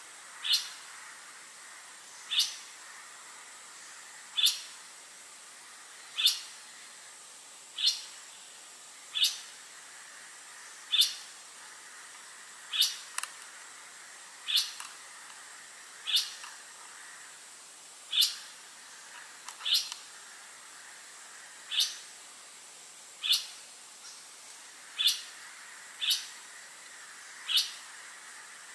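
A bulbul (the bird known in Indonesia as kapas tembak) repeating a single short, sharp call about every two seconds.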